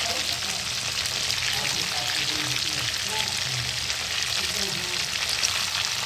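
Marinated fish pieces sizzling and crackling steadily in very hot mustard oil in a kadai, while a spatula turns them over in the oil.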